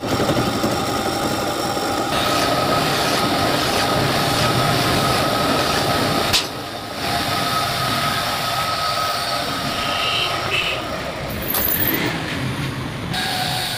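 Metal lathe running steadily with a 2 HP single-phase motor's rotor spinning in its chuck, the shaft being worked to repair a loose bearing seat. There is a sharp click about six seconds in.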